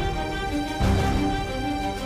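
Television theme music.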